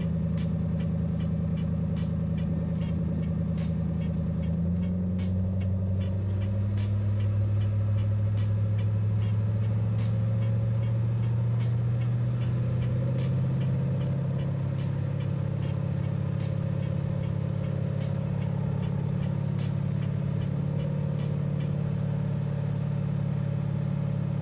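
Car engine idling under a heavy alternator load from a battery load tester drawing about 500 amps. About five seconds in, the load is released and the engine note steps up, then climbs gradually as the voltage rebounds. Faint ticks recur throughout.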